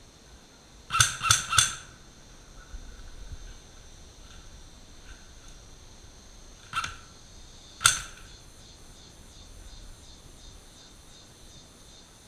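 Airsoft guns firing: three quick shots about a second in, then two single shots a second apart in the middle. Insects keep up a steady high drone throughout.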